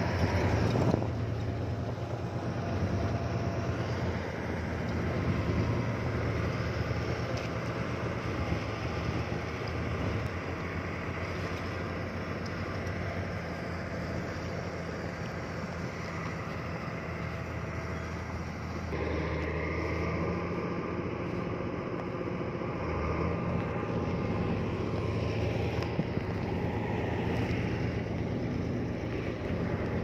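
Diesel engines of heavy earthmoving machines running under load, a steady low drone. Its character changes abruptly about a second in and again a little past halfway.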